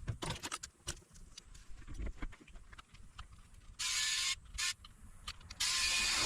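Small clicks and knocks of parts being handled, then a small electric screwdriver running in two short bursts with a steady whine, about four seconds in and again near the end, driving screws on a portable power station.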